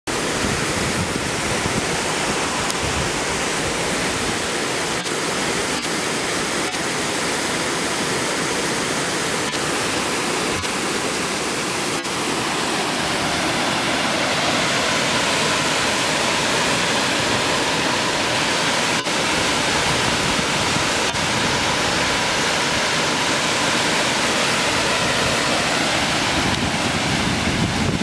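Steady rush of water pouring over the stone ledges of Upper Cataract Falls.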